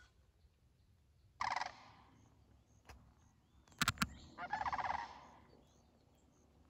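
Canada goose calling: two short bursts of rapid, pulsed honks and clucks, about a second and a half in and again near the middle. Two sharp clicks come just before the second burst.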